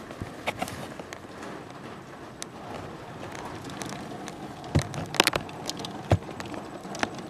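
Heavy thunderstorm rain pouring down in a steady wash, with scattered sharp clicks and knocks; the loudest come in a cluster about five seconds in and once more about a second later.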